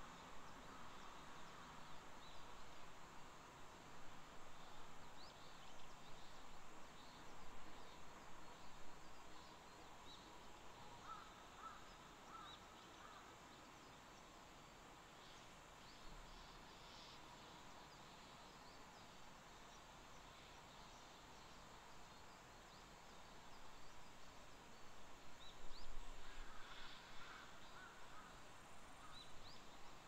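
Faint forest ambience: a soft steady hiss with scattered short bird chirps, and crows cawing in the distance a few times, about a third of the way in and again, louder, near the end.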